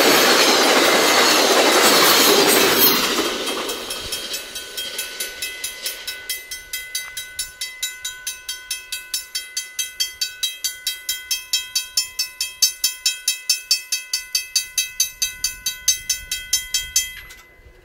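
A VIA Rail passenger train's wheel and rail noise fades away over the first few seconds, leaving a level-crossing bell ringing steadily, about three strikes a second, until it stops shortly before the end.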